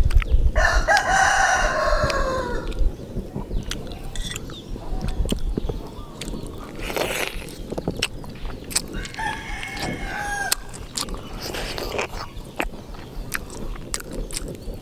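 A rooster crowing: one long, loud crow about half a second in that drops in pitch at its end, then a second, fainter crow about nine seconds in.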